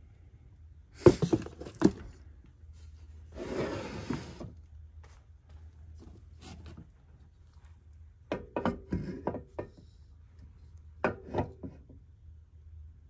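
Several groups of knocks and clunks as a VW air-cooled engine case and a slip-in cylinder are handled and set down on a wooden workbench, with a short rustle of about a second near the start.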